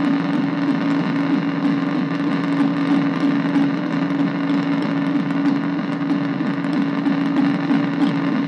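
Korg MicroBrute analog synthesizer cross-patched with a Nova Drone, played through a bass practice amp: a loud, steady, buzzing drone with a strong low tone and a fast wobbling, modulated texture above it.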